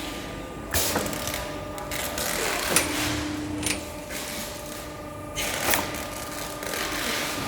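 CNC corner crimping machine for aluminium door and window frames running a crimping cycle: a steady machine hum with a few sharp mechanical knocks spread through it.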